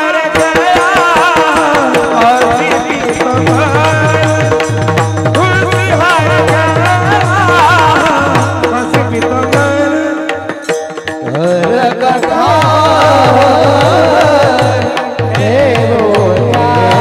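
Devotional Warkari kirtan singing with a winding, ornamented vocal line over steady held drone tones, accompanied by repeated deep mridang drum strokes and percussion.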